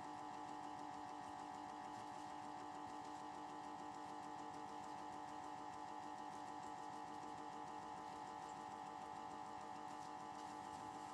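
Small electric motor of a toy Miele washing machine spinning its drum at a steady speed during the final spin, a constant whine with no change in pitch.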